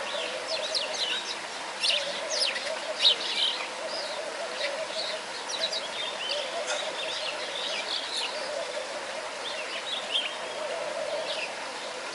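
Small birds chirping: many quick, high calls overlapping, busiest in the first few seconds, over a steady hum.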